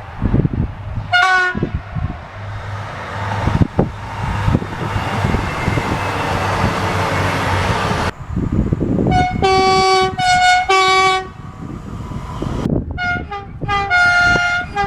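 Train horn sounding in short blasts: one brief blast about a second in, three close together near the middle, and two more near the end. Between the first blast and the rest, a passing train's rumbling noise fills the gap.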